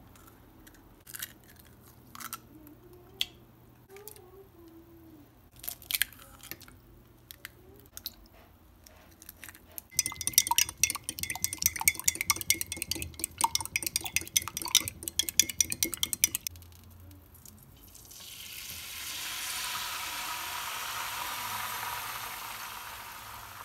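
Eggs being cracked into a glass mug, a few scattered taps and cracks. Then a fork whisks them briskly against the glass, rapid clinking for about six seconds. Then the beaten eggs sizzle in a hot frying pan, a steady hiss that swells in and fades a little near the end.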